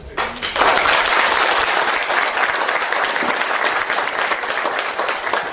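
Audience applauding: clapping starts just after the opening, fills in within about half a second and holds steady.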